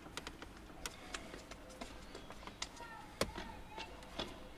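Irregular light clicks and taps as a fingertip presses along the edges of a tempered glass screen protector on a car's touchscreen, seating it; the sharpest click comes about three seconds in.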